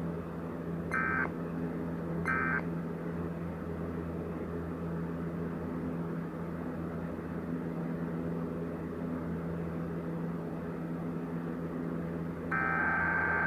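Emergency Alert System SAME digital data bursts: two short bursts about a second apart near the start, the end of the message's sign-off, then a steady low electronic hum, and a longer burst about a second and a half long near the end that opens the next alert's header.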